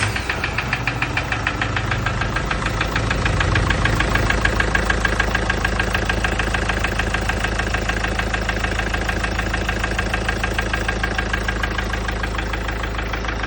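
Mahindra Scorpio's mHawk four-cylinder diesel engine idling, with a light, fast, regular knocking from inside the engine. The knock began after the engine overheated from a coolant leak. It comes from the number one piston, which has scuffed its cylinder wall and now has play in the bore.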